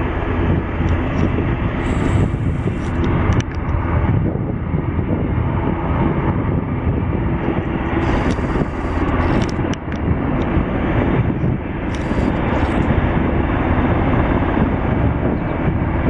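Twin-engine jet airliner's engines on landing approach: a steady rushing jet noise with no clear pitch, heaviest in the low end.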